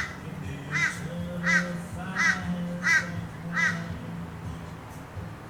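A bird calling in a series of about six short calls, roughly one every 0.7 seconds, stopping about four seconds in, over a low steady hum.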